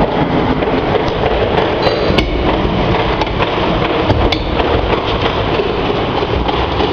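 Peanut roasting machine running with a steady, dense rattle and rumble, with a few sharper clicks about two and four seconds in.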